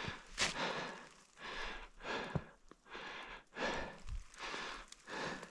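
A person breathing hard close to the microphone, with a breath about every second.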